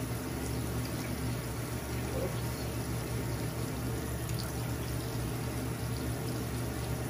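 Bathroom sink tap running steadily, water splashing into the basin.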